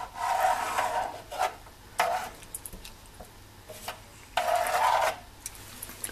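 A homemade 95 cm cat exercise wheel rolling in short spurts as a cat steps in it, with a rubbing rolling noise that starts and stops: about a second at the start, briefly about two seconds in, and again for about a second past the four-second mark. Light clicks and knocks come in between.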